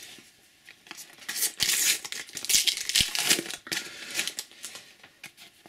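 A Panini sticker packet being torn open by hand, its wrapper tearing and crinkling in several short rustling bursts, with a single sharp tap about three seconds in.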